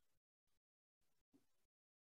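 Near silence: a very faint hiss that cuts in and out, with one faint click about a second and a half in.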